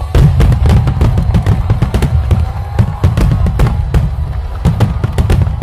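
Fireworks going off in rapid succession: many sharp bangs and cracks over a deep, continuous rumble.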